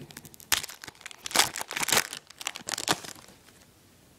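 Plastic wrapper of a trading card pack being torn open and crinkled, a quick run of crackly rustles that stops about three seconds in.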